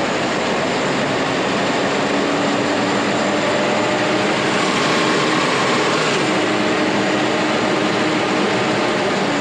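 Case IH Maxxum 145 tractor's six-cylinder diesel engine running steadily at raised RPM with the PTO and hydraulics engaged, heard from inside the cab.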